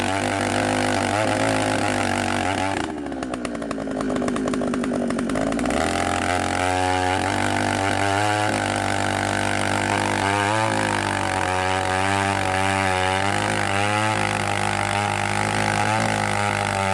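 Engine of a large machine-driven drill running. Its speed drops and the note falls about three seconds in, picks back up near six seconds, and then holds with a slightly wavering pitch.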